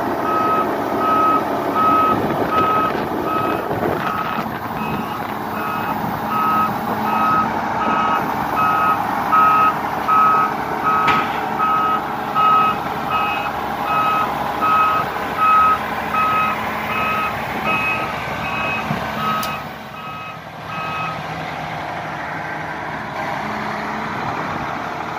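Heavy-equipment travel alarm beeping steadily, about three beeps every two seconds, over the steady run of a large diesel machine's engine. The beeping stops about 21 seconds in, and the engine continues alone.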